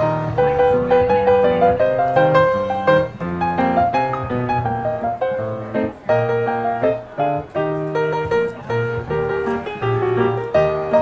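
Background piano music: a melody of struck notes over low bass notes.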